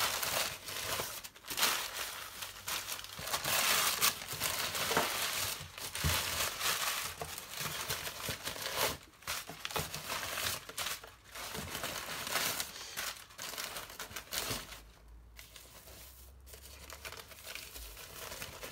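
Crumpled newspaper packing rustling and crinkling as hands dig through it and pull it out of a cardboard box. The rustling is busy and fairly loud at first and becomes quieter and sparser over the last few seconds.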